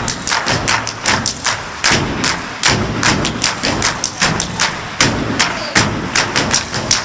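Step dancing: rapid stomps on a stage floor with hand claps and slaps, about five sharp strikes a second in a shifting rhythm.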